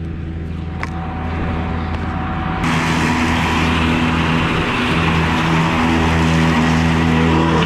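John Deere utility tractor's diesel engine running steadily under load while its six-foot rotary cutter (bush hog) mows thick, tall grass. About two and a half seconds in, the sound switches abruptly to a louder, fuller take of the engine and cutter.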